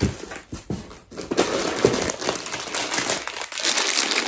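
Hands rummaging in a cardboard box with a few light knocks and rustles, then from about a second in, continuous crinkling of a plastic bag of foil-wrapped chocolate eggs being handled.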